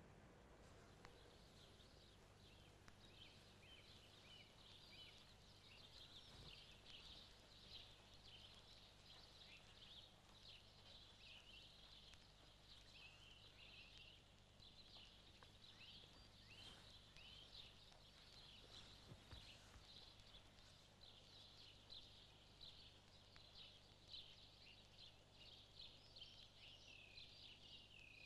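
Faint birdsong: many small birds chirping continuously, with a low steady hum beneath.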